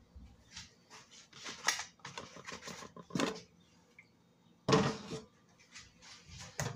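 Kitchen things being handled: a series of short, irregular clatters and scrapes, the loudest about two-thirds of the way through.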